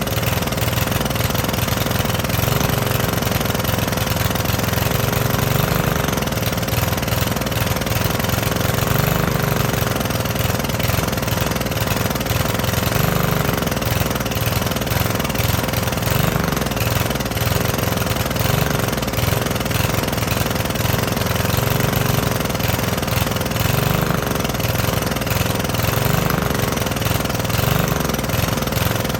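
Cub Cadet LE 100 lawn edger's 159cc single-cylinder engine running, its low note swelling and fading every few seconds. The owner takes the uneven running for old fuel still in the tank being burned through after years of sitting.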